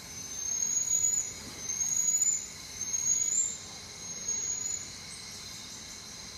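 Four high-pitched rising whistle-like calls, each just under a second long and about a second apart, the last one fainter, over a faint steady high hum.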